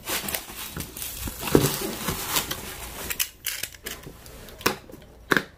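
Snap-off utility knife slicing through a corrugated cardboard box in a series of short strokes, with the cardboard flaps being handled and pulled open.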